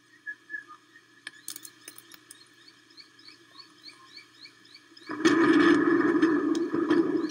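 A faint series of short rising chirps, about three a second, from a small bird. About five seconds in, a sudden loud rush of storm wind and rain hits the nest-cam microphone.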